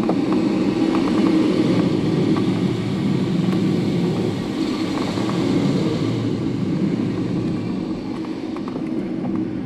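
Air rushing past the canopy of an ASW 27 glider during a loop, heard inside the cockpit as a steady, loud rush. It is loudest about a second or two in and eases slightly toward the end.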